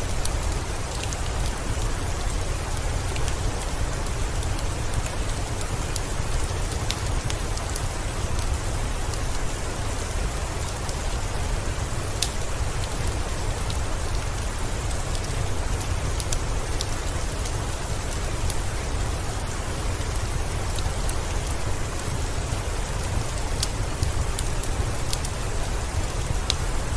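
Steady heavy rain with a low rumble, mixed with scattered sharp crackles from a wood fire in a fireplace.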